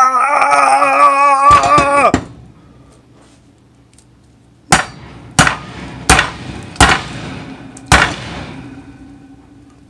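For about two seconds a man's held voice wavers in pitch. Then an upturned tin can of condensed soup is banged five times on or over a steel saucepan to knock the thick soup out, each knock sharp and ringing.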